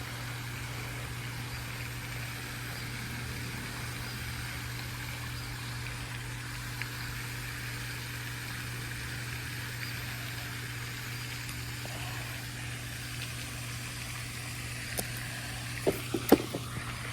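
Steady low hum over a faint outdoor hiss, holding level throughout, with a few small sharp clicks near the end.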